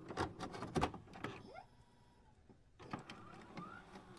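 Digital glitch sound effects for an intro loading animation: a string of sharp clicks and crackles, a near-quiet gap about halfway through, then more clicks with a short rising tone near the end.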